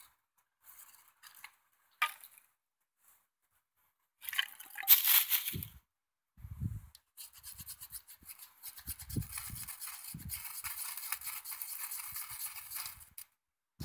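Mora Companion HD's ground square spine scraping down a ferrocerium rod to throw sparks onto tinder: a few light scrapes, one loud scrape about four seconds in, then a long run of quick repeated scrapes from about seven seconds until shortly before the end. A few dull knocks come between the strokes.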